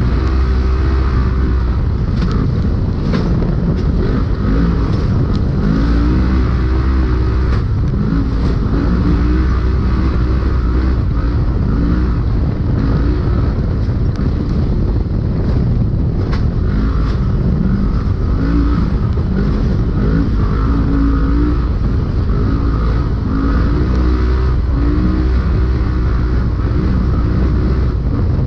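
Polaris RZR racing UTV's engine at race pace, heard inside the cab, its revs climbing and dropping again and again as the throttle is worked over rough desert terrain. Sharp knocks and rattles from the chassis and suspension come through often.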